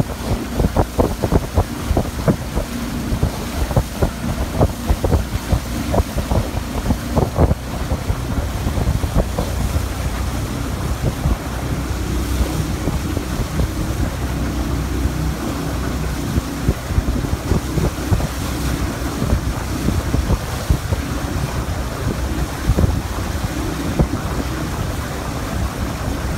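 Wind buffeting the microphone on a moving motor launch, gusting hard in the first few seconds, over water noise and the low, steady hum of the launch's outboard motor.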